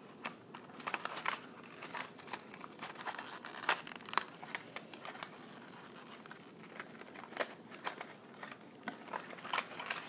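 A cardboard YoyoFactory yo-yo box with a clear plastic window being handled in the hands: scattered crinkling and small clicks of the packaging.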